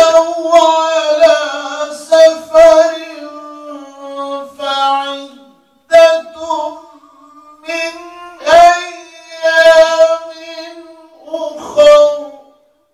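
A man reciting the Quran in the melodic, drawn-out tajwid style, singing long held notes in several phrases with short breath pauses between them. The recitation breaks off just before the end.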